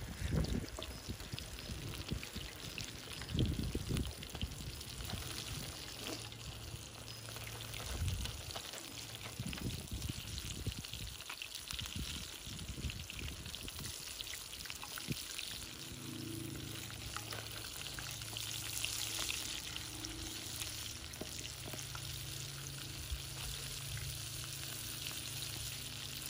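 Chicken drumsticks deep-frying in hot oil in a cast-iron skillet: a steady crackling sizzle. A few low thumps come in the first several seconds, as the pieces are lowered in.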